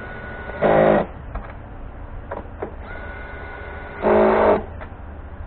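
Cordless power tool, run in two short bursts about three seconds apart while fastening at the battery, each burst led in by a faint high whine.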